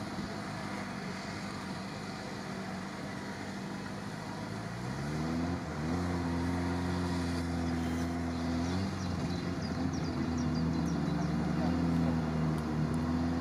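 A 4x4's engine revving hard during a rope recovery of a vehicle stuck in mud. The revs rise about five seconds in and are held, dip briefly near nine seconds, then climb and hold again.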